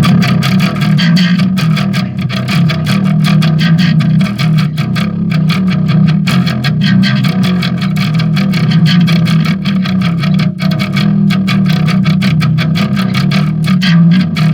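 Electric bass played through a Behringer V-Tone Bass BDI21 amp modeler/DI set to its dirty tone, with the drive cranked up and the blend turned down: a continuous run of quick, distorted bass notes that starts right away.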